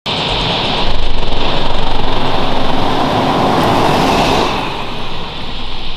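Jeep Wrangler driving past on a paved road, its tyre noise rising to a peak about four seconds in and then dropping away, over a steady high hiss.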